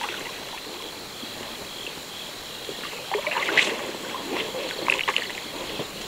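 Paddle strokes and water sloshing around a small rowing boat. A few sharp knocks and splashes come between about three and five seconds in.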